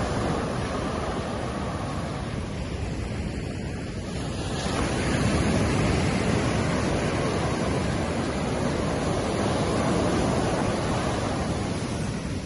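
Ocean surf washing onto a sand beach: a continuous rush of breaking waves that swells louder about halfway through as a bigger wave comes in.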